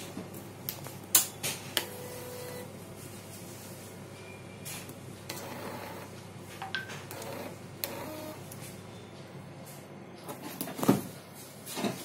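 Irregular sharp clicks and knocks with a few very short beeps, over a steady low hum.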